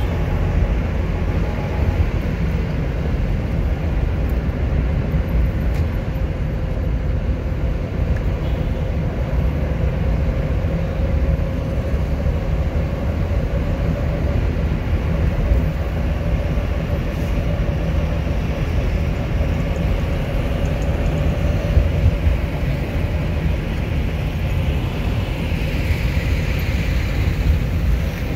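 Steady low rumble of engine and tyre road noise heard from inside a moving car driving in traffic.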